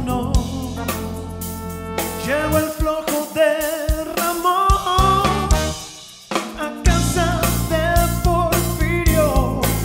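Live band playing an Afro-Peruvian soul song, with a male singer holding a wavering, drawn-out vocal line over bass, drums and guitar. The bass and drums drop away after about two seconds and come back in full about seven seconds in.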